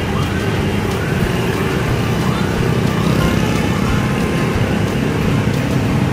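Street traffic of many small motorbikes and scooters passing continuously, a steady mass of engine hum.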